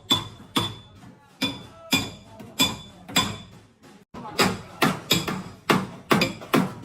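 Hammer blows on a car's sheet-metal body panel during panel beating, about two strikes a second with short pauses, each giving a brief metallic ring.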